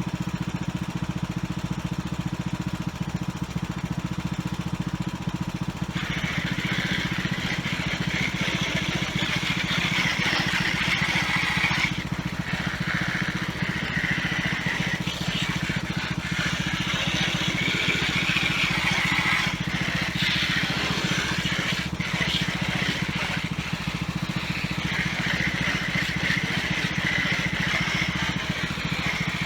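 Riding lawnmower engine running steadily at idle, left on to charge a weak battery. From about six seconds in, a higher hiss comes and goes over it.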